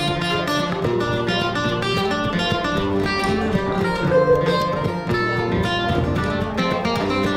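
Background music with plucked guitar, a steady, continuous piece.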